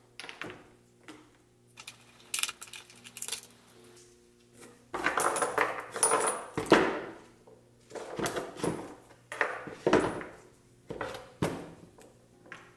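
Small metal bolts and a black plastic engine cover handled on a wooden workbench: a run of clicks, knocks and short rattles as bolts are pulled out and set down and the cover is moved. Faint background music plays underneath.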